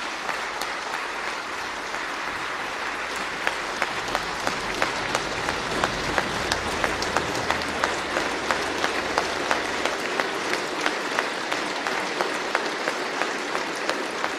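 A large audience applauding. A few seconds in, the clapping falls into a steady rhythm in unison, about three claps a second, over the general applause.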